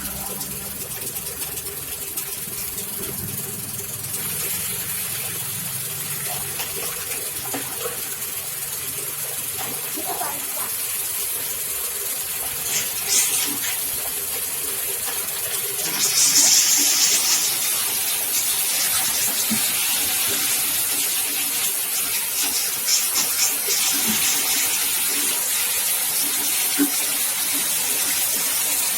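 Candlenut cracking machine with its shell-separating sieve running, a steady rushing, rattling noise that grows louder about four seconds in and again about sixteen seconds in, with a few sharp clicks.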